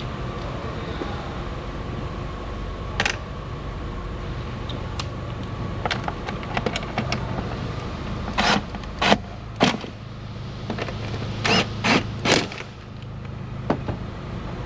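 Cordless power tool with a socket driving a bolt in about six short bursts in the second half, with scattered clicks and knocks of parts and tools over a steady low hum.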